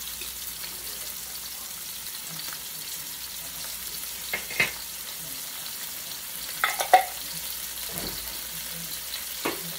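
Sliced onions and minced garlic sizzling steadily in hot oil in a pan as they sauté. A few light clicks come about four seconds in and again about seven seconds in.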